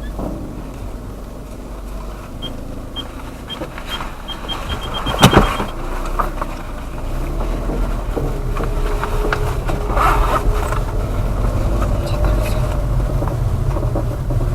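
A worn saddle creaking under a rider over a steady low rumble of riding, which grows louder after about seven seconds. A run of quickening ticks leads up to a single sharp knock about five seconds in.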